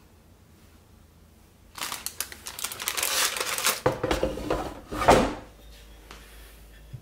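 Paper air-fryer liner crinkling as it is handled, then the air fryer's plastic basket knocking and being pushed shut with a clunk about five seconds in.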